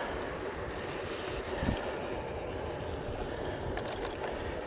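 A bicycle rolling along on the move: steady tyre and wind noise, with one short low sound about two seconds in.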